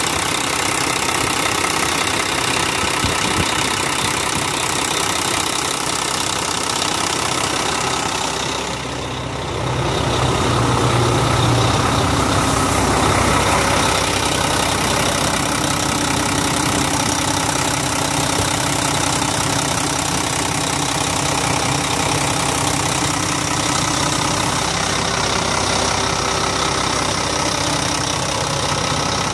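Volvo semi truck's diesel engine idling steadily, heard up close with the hood open; the sound dips briefly about nine seconds in.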